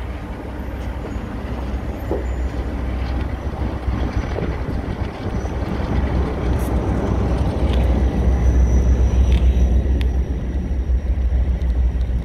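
Two coupled diesel locomotives running past with a low engine rumble that grows louder as they draw close, loudest as they pass beneath.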